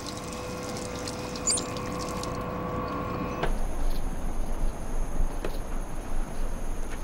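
Tap water running while a man drinks from his cupped hands, over a steady machine hum. About three and a half seconds in, this cuts off abruptly to an outdoor background with a steady high-pitched whine and a low rumble.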